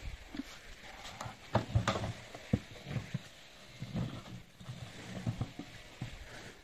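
An Asian elephant shoving a large hanging tyre with her trunk and foot: irregular knocks and dull thumps, the loudest cluster about two seconds in.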